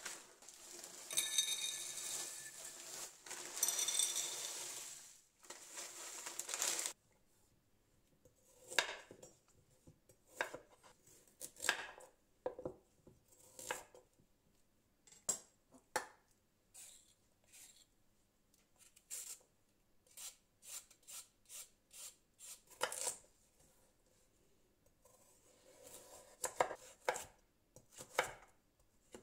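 Frozen edamame, peas and corn rattling into glass dishes for the first several seconds. Then a chef's knife slices carrots on a bamboo cutting board: separate knocks of the blade on the board, about one a second, coming quicker near the end.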